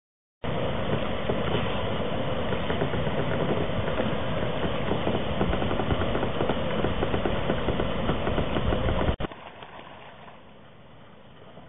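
Wind buffeting the microphone on open water: a loud, gusty rumble that stops abruptly about nine seconds in, leaving a much quieter steady hiss.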